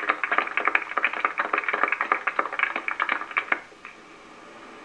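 Scattered applause from a small crowd: many irregular hand claps that die out about three and a half seconds in.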